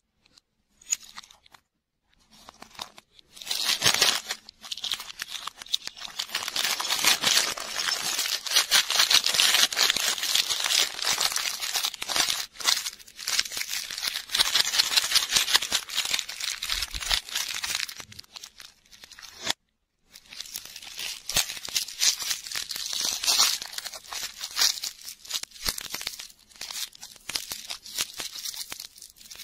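Thin plastic candy wrappers crinkling and tearing in the hands: a small sealed packet being torn open, then a lollipop wrapper being unwrapped. It is a dense, fine crackle that starts a few seconds in and stops briefly about two-thirds of the way through.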